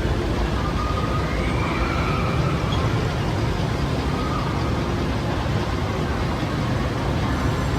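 Steady background din of a crowded indoor amusement park, with faint distant voices rising and falling in it.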